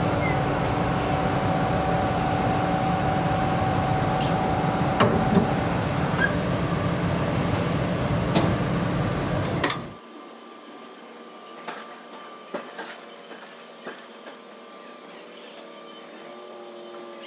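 Railway traverser running with a Moto 94 electric freight car aboard: a steady mechanical hum with a low drone and a couple of held tones. About ten seconds in, the sound cuts off abruptly to something much quieter, with faint scattered clicks and knocks.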